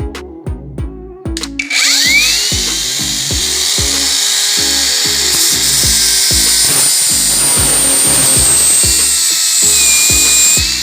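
Parkside Performance PWSAP 20-Li C3 cordless angle grinder switching on about two seconds in, its whine rising as the motor spins up, then running steadily with a loud hiss. Near the end it begins to wind down. Background music with a steady beat plays throughout.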